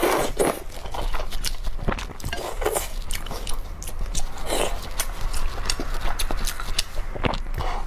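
Close-miked eating: noodles slurped at the start and again near the end, with chewing of a piece of beef and many short wet mouth clicks in between.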